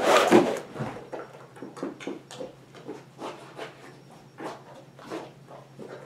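A dog sniffing and breathing in short, irregular puffs as it noses around on a carpet, after a louder rustling burst at the very start.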